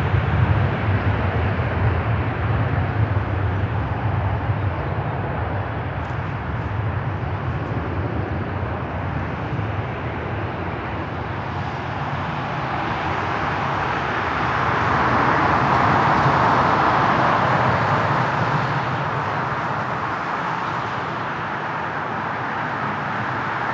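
Jet airliner engines: a broad, steady rush of engine noise with a low rumble underneath, swelling to its loudest about fifteen seconds in and then easing off.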